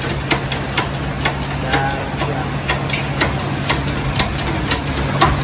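Hydraulic shop press's pump running with a steady low hum and a sharp regular click about twice a second.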